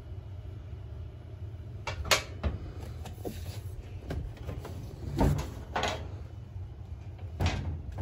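Several sharp knocks and rubs from the plastic housing of a Lasko Ultra Force box fan being gripped and turned around by hand, over a steady low hum.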